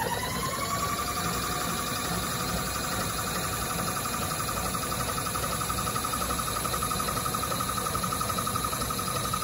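Milling machine table power feed motor running. Its whine rises in pitch over the first half second as it comes up to speed, then holds steady as it drives the table.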